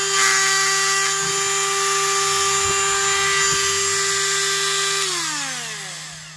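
Ryobi HT20VSK rotary tool's permanent-magnet motor running at speed with a steady high whine, plus the noise of its loose motor field rattling in the housing. About five seconds in it is switched off and winds down, the whine falling in pitch and fading.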